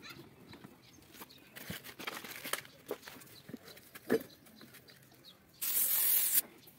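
Scattered knocks and clanks of steel tyre levers and tools working a tractor tyre, then a short loud hiss of compressed air from an air hose held to a tractor inner tube, lasting under a second and cutting off abruptly.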